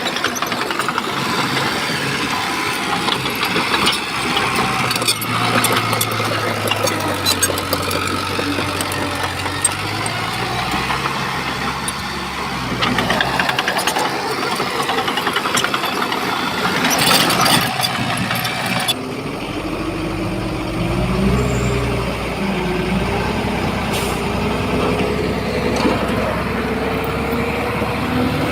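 Heavy diesel earthmoving machinery working, the engine running under load with scattered clanks and knocks. About two-thirds of the way through the sound changes abruptly to a deeper engine note that slowly rises in pitch.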